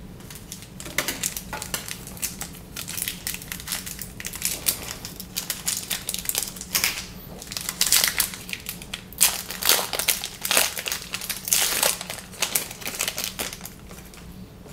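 Trading card pack wrapper being crinkled and crumpled in the hands: a long run of irregular crackles that starts about a second in and dies away near the end.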